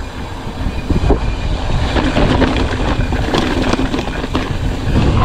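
Mountain bike riding down a dirt trail: wind buffeting the microphone with a deep rumble from the tyres, and frequent clicks and rattles from the bike over bumps.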